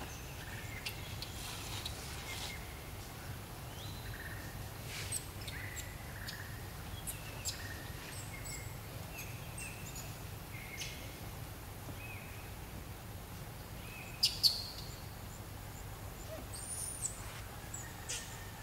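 Forest ambience: short bird chirps and whistles come and go over a steady low hum. About fourteen seconds in, two short, sharp, louder sounds come a fraction of a second apart.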